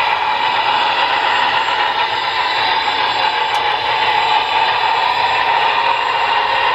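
Model Union Pacific Challenger steam locomotive hauling a freight train on a model railroad: a steady running noise with no clear beat.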